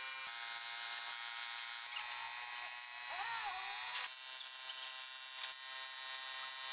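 Air compressor running with a steady, many-toned electric buzz, feeding a paint spray gun. A brief rising-and-falling sound breaks in about three seconds in.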